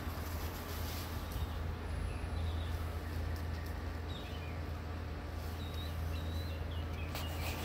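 Small birds chirping in short, high calls from about halfway in, over a steady low hum, with a few brief crackles near the end.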